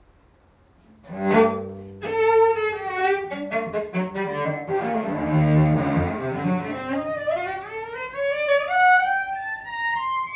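Cello being bowed: a single note about a second in, then a run of notes that drops into the low register midway, and a long slide climbing steadily in pitch toward the end.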